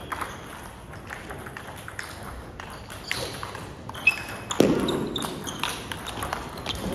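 Table tennis play: the ball clicking sharply off the rubber paddles and the table in an irregular string of hits, with a few short high squeaks and a louder burst of noise about two-thirds of the way through.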